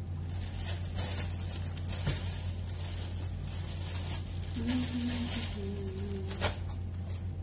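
Plastic bag of flatbread crinkling and rustling as it is handled, over a steady low hum. Two brief low tones sound in the middle, and a sharp click is heard near the end.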